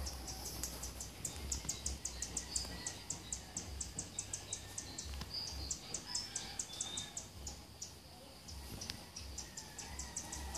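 Insects chirping in a fast, even pulse of several chirps a second, which pauses twice, with a few short bird chirps among them.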